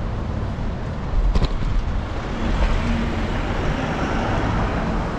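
Road traffic noise along a busy city street: a steady haze of passing vehicles with a low rumble, and one sharp click about a second and a half in.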